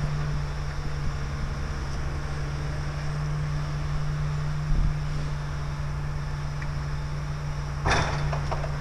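Diesel engine of a forestry harvester running steadily with a constant low hum. A low thud comes about halfway, and a short sharp knock, the loudest sound, near the end.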